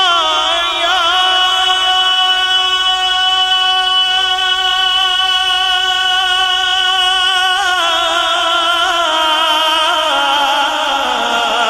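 A male naat reciter holding a long, wordless sung note. It wavers at first, holds steady for several seconds, then steps down in pitch and slides lower near the end.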